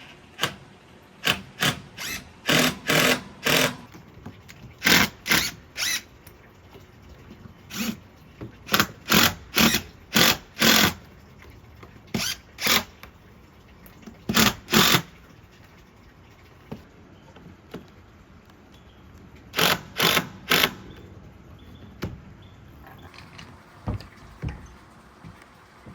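Power drill driving screws into deck boards in short trigger bursts, about twenty of them in clusters of two to five, with a pause of a few seconds after the middle.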